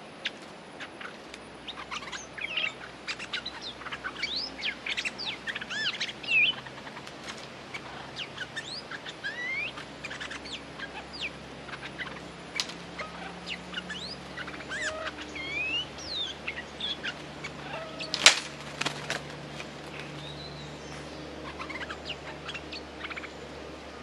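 Stripe-throated bulbuls calling: quick runs of short whistled notes that slide up and down, busiest through the first two-thirds and thinning out near the end, with one loud sharp note about three-quarters of the way through. These are territorial calls by a resident bird challenging a caged decoy.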